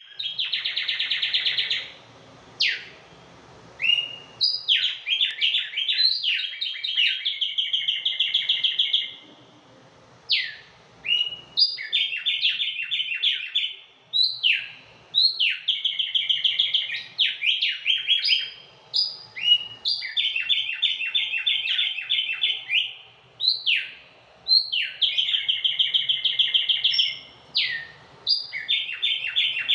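Caged tumbayegua songbirds singing: a repeated song, each phrase a few seconds long, opening with a sharp falling note and running on in a fast trill, with short pauses between phrases.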